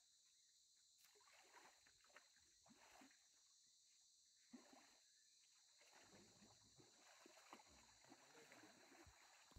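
Near silence: the soundtrack is all but muted, with only very faint traces of sound.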